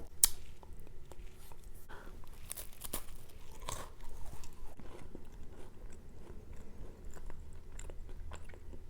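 Close-miked biting and crunchy chewing of a dry MRE cracker: a sharp bite just after the start, then a run of small crisp crackles as it is chewed.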